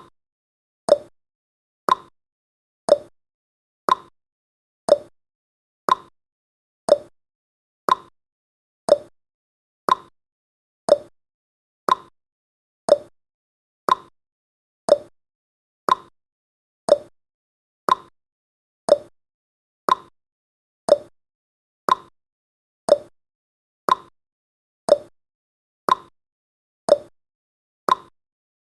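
Countdown timer's ticking sound effect: one short, sharp tick every second, evenly spaced and at an unchanging level.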